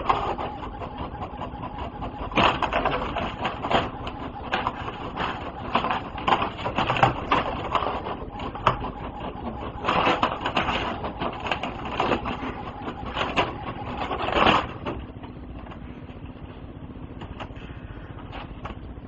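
HP inkjet printer printing a page: a series of short, irregular mechanical runs as the paper feeds out. They stop about fifteen seconds in, leaving a quieter steady sound.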